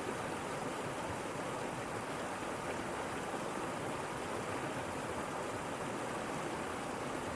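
Steady rush of water from a small waterfall and creek, an even splashing hiss with no breaks.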